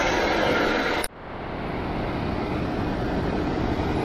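Airport apron ambience: a steady noise haze of distant aircraft and ground equipment. It cuts off abruptly about a second in and comes back a little quieter.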